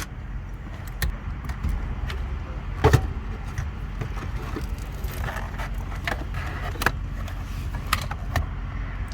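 Plastic clicks, knocks and rattling from handling a car radio unit and its wiring plugs as it is pulled out of the dashboard, with one loud knock about three seconds in, over a steady low rumble.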